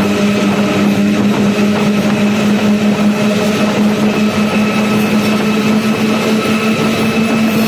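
RGE-20 diesel-electric locomotive's engine running under load, heard inside the cab as a steady drone over rumbling train noise. Its pitch creeps slowly upward.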